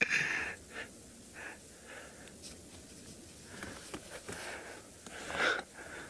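A person's breathing close to the microphone: soft breaths through the pause, with a louder intake of breath near the end.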